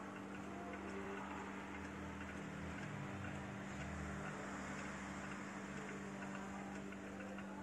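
Vintage Black Forest cuckoo clock with a one-day movement, its escapement ticking steadily, over a steady low hum.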